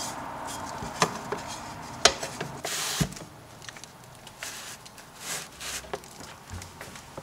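Handling noises of a glass collodion plate in its tray: sharp knocks about a second apart, the third coming just after a short hiss, then fainter rubbing and small scrapes.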